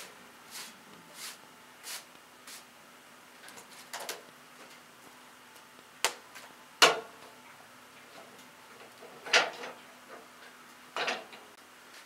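Lumber being handled on a portable bandsaw sawmill's bed with the mill shut off. First come soft scuffs about every two-thirds of a second for a couple of seconds. Then two sharp wooden knocks about six and seven seconds in, the second the loudest, and two short scrapes near the end.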